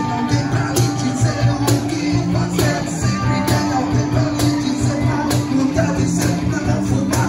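Live rock band playing: electric guitars over a steady beat from a cajón and cymbal, with a man singing into the microphone.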